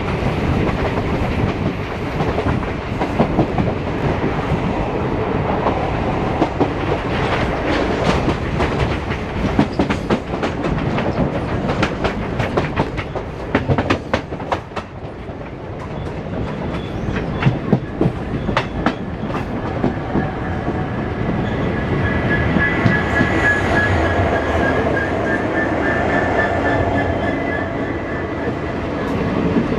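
Passenger train coach running on jointed track, with wheels rumbling and clattering. In the middle a quick run of sharp clicks comes as the wheels cross the pointwork into a station yard. From about twenty seconds in, a steady high squeal joins the rumble as the train rolls alongside a standing goods train toward the platform.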